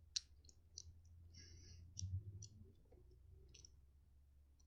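Beyblade Burst top being fitted together by hand: faint, scattered plastic-and-metal clicks, with a short soft scrape about a second and a half in.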